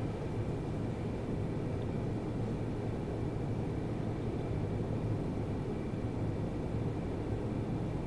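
Steady low rumble and hiss of background noise, with a faint hum, unchanging throughout and with no distinct events.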